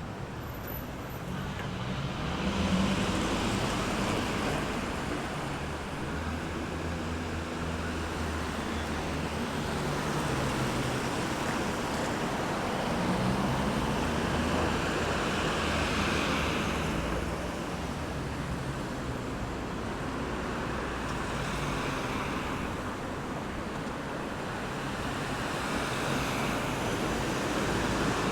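Road traffic: a steady wash of tyre and engine noise that swells as vehicles pass every few seconds, with a low engine hum through the first half.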